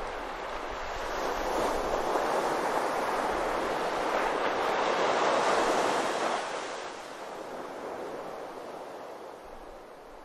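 Ocean surf breaking and washing onto a sandy beach: a steady rush of waves that swells to its loudest around halfway through, then gradually fades away.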